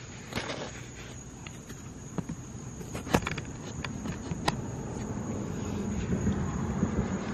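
Night ambience: a steady high insect drone with scattered sharp clicks and taps close to the microphone. A low rumble of distant road traffic builds over the second half.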